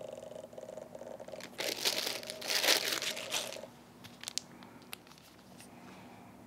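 Plastic packaging crinkling as it is handled, a rustling burst of about two seconds, followed by a few light clicks.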